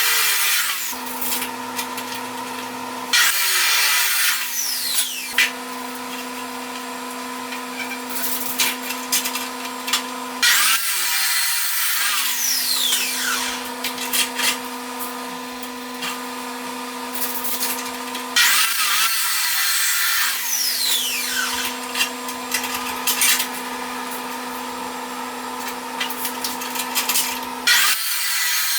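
Power saw cutting steel stock to length: a steady motor tone under a loud cutting hiss, in several passes with short breaks about every eight seconds between cuts.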